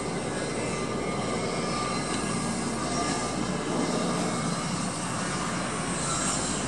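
A steady engine drone over a rushing noise.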